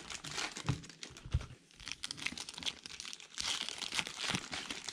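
Trading card packs and cards being handled: an irregular crinkling and rustling, with a couple of soft knocks in the first second and a half.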